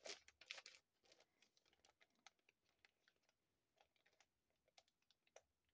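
Near silence with faint rustles and light clicks of plastic packaging being handled, most of them in the first second, then only a few scattered ticks.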